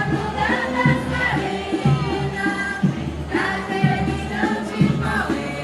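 A carnival bloco lírico performing: an orchestra plays a march while a chorus of voices sings the melody over a steady beat.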